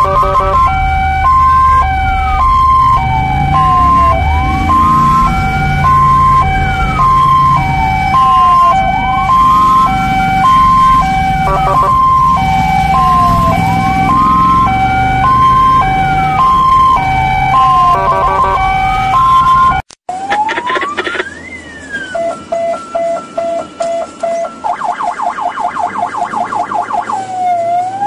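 Ambulance sirens: a wail rising and falling about every two seconds sounds together with a two-note hi-lo tone, over low road and engine rumble. After a brief cut-out about twenty seconds in, a different siren wails, switches to a fast yelp for a few seconds near the end, then goes back to wailing.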